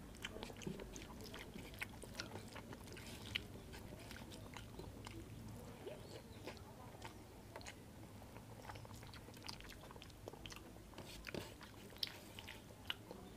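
Close-miked mouth sounds of a person chewing a handful of rice mixed with dal and curry, with many small wet clicks and smacks, along with fingers squishing rice.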